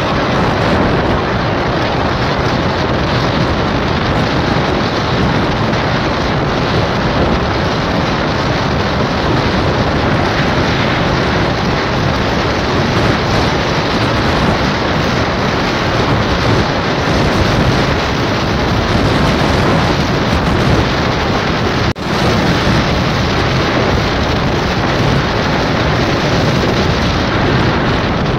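Steady rushing noise of wind buffeting the microphone together with the road noise of a vehicle driving at speed, with one brief sudden drop about three quarters of the way through.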